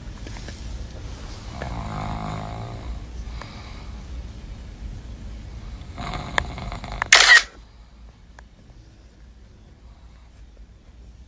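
A person snoring: a drawn-out, pitched snore about two seconds in. Just after seven seconds comes a short, loud, harsh noisy burst, the loudest sound here, and after it the sound drops to a lower level.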